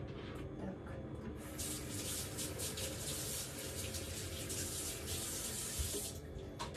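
Kitchen tap running into the sink: the rush of water starts about a second and a half in and is shut off about a second before the end.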